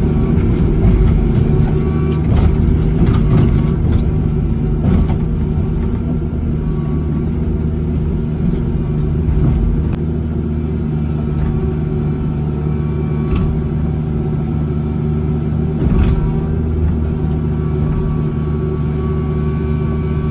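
Engine of heavy machinery running steadily at a constant speed, with scattered sharp knocks and clanks, several in a row about two to five seconds in and single ones later.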